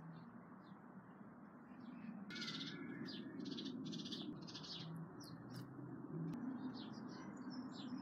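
Small birds chirping: a quick run of repeated chirps about two seconds in, then a few thin, high whistled notes near the end, over a faint, steady low hum.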